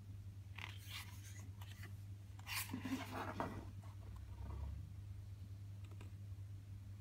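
Glossy photobook pages being turned and a fold-out page opened by hand: short paper rustles and slides, the loudest about two and a half to three and a half seconds in, over a steady low hum.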